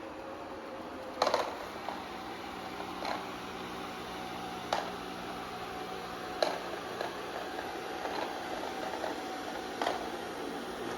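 Amarey A90+ robot vacuum running, a steady motor and fan hum with a faint whine, broken by five short knocks spaced a second or two apart.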